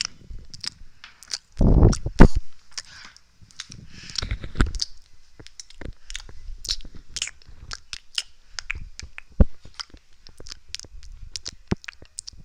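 Close-miked ASMR mouth sounds: a dense run of wet clicks and smacks, with a louder, deeper burst about two seconds in.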